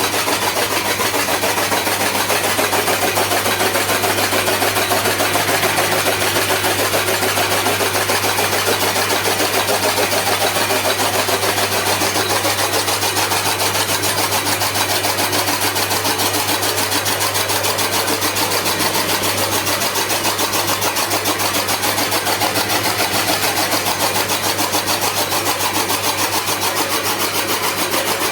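Chaff cutter (straw-cutting machine) running steadily, with a constant low hum and a fast, even mechanical beat.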